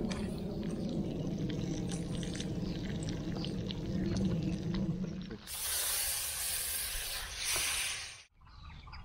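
Meat, potatoes and onion sizzling in a kazan over a campfire, with many small crackles and pops. About five seconds in, water poured into the hot pot sets off a loud steam hiss, which stops sharply near the end.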